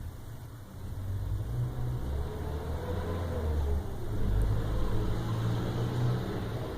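Vacuum cleaner running with a low rumble that gets louder about a second in.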